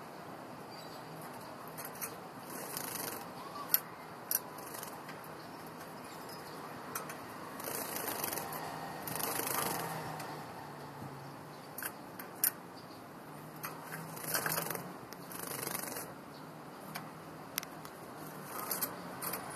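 Java sparrows moving about in wire cages: scattered light clicks and taps of feet and beaks on bars and perches, with short rustling bursts every few seconds.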